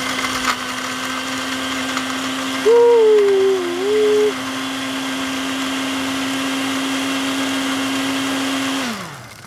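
Countertop blender motor running at a steady pitch on a cocktail mix, then winding down with falling pitch and stopping near the end. About a third of the way in, a man's voice lets out a loud, wavering, drawn-out sound for about a second and a half over the blender.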